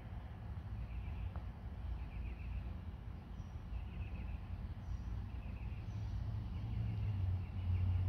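Outdoor background sound: a steady low rumble that grows louder near the end, with faint, high, chirping calls repeating every second or so.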